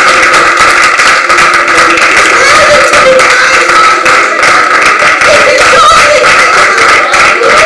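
A congregation clapping, loud and dense, with a few voices calling out over the claps.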